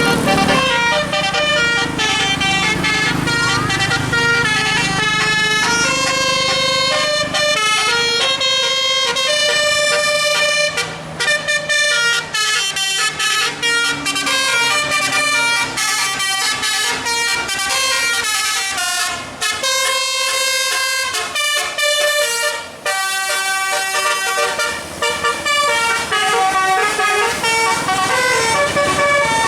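A bus's 'telolet' multi-note musical air horn playing a fast tune of short, clipped notes, with a few brief breaks. An engine rumbles underneath in the first few seconds.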